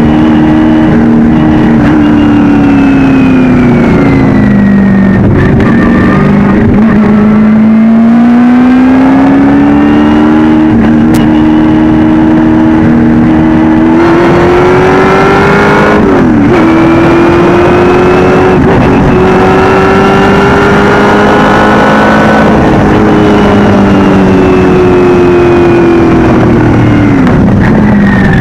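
Shelby Can-Am race car's V6 engine at racing speed, loud and close: the revs drop under braking, climb steadily through acceleration, dip sharply in a quick upshift just past halfway, hold, then fall away again near the end.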